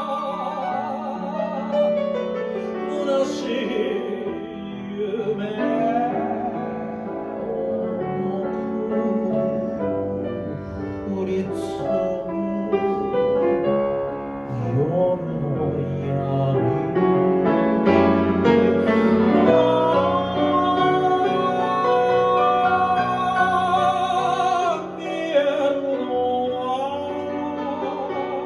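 Piano accompanying a singer who holds long notes with vibrato.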